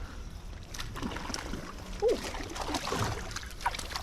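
River water running steadily, with a few faint clicks and knocks of handling scattered through.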